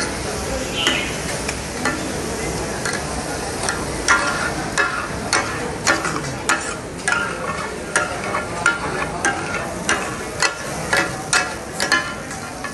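Taka tak: metal spatulas striking and scraping a large flat iron griddle as offal is chopped and fried, over a steady sizzle. From about four seconds in, the clanks come in a quick rhythm, about two a second.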